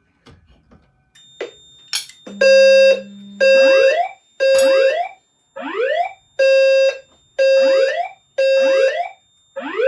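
Fire alarm system going into alarm after a smoke detector activation. From about a second in, a steady low horn tone pulses on and off, overlapping with rising whoop sweeps that repeat about once a second.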